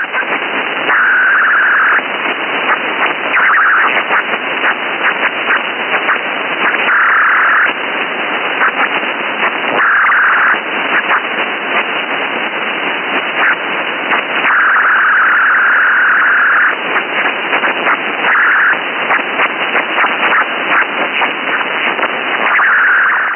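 Electronic interference noise: dense crackling static, thin and cut off at the top like a phone or radio line, with a buzzing tone that breaks in again and again for a second or two at a time.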